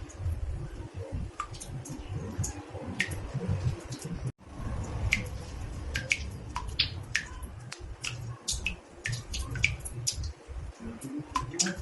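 Water drops falling into a bathtub, making irregular, bright plinks several times a second over a low, steady rumble. The sound cuts out briefly about four seconds in.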